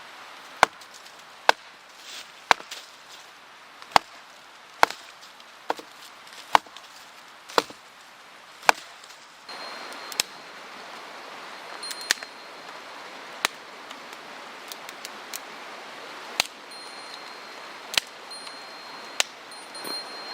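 Firewood being chopped: a series of sharp wooden strikes, about one a second at first, then spaced further apart in the second half.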